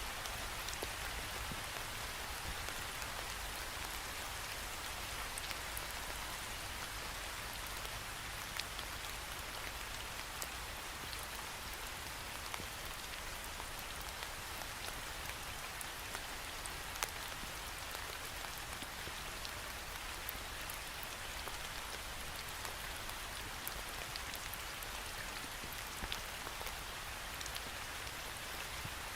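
Steady rain falling against a window pane, an even hiss with many small scattered drop ticks.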